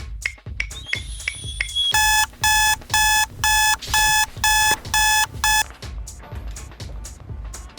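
Electronic alarm beeping: eight short, high, evenly spaced beeps, about two a second, starting about two seconds in and stopping a little after halfway. Background music with a steady beat runs underneath.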